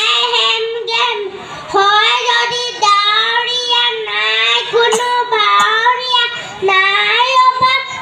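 A young boy singing solo and unaccompanied, holding long notes that slide up and down in pitch, with short breaths between phrases.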